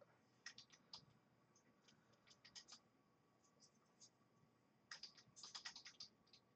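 Faint typing on a computer keyboard: a few scattered keystrokes, then a quicker run of them about five seconds in.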